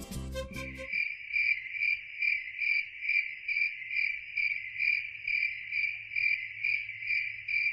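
A short music cue ends about a second in. A cricket then chirps steadily and evenly, about two and a half chirps a second.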